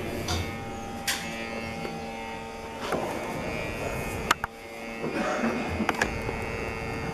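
A steady electric motor hum in a woodworking shop, with a few short knocks and rubs as hands handle a turned American oak table leg on the stopped lathe.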